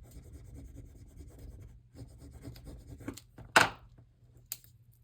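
Soft rubbing and scratching of hands and tools on paper on a journal page, like pressing or smoothing cut paper pieces down. There is one short, louder scrape about three and a half seconds in.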